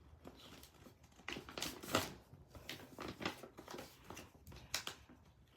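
A sheet of paper being folded and creased by hand: a faint, irregular run of short rustles and crinkles.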